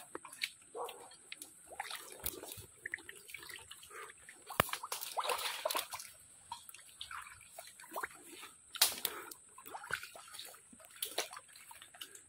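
Footsteps squelching and sloshing through wet swamp mud and shallow water: irregular wet steps with a few sharp clicks among them.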